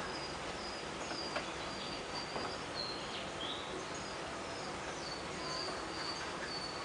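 Small birds chirping in short, repeated high calls over steady outdoor background noise, with no dog barking.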